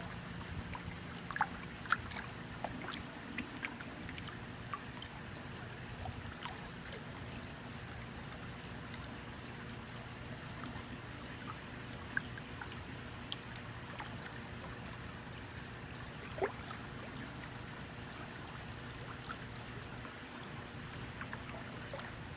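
Water trickling and gurgling in a plastic tub, with a faint steady low hum and occasional small sharp splashes, the clearest about two seconds in and near the end.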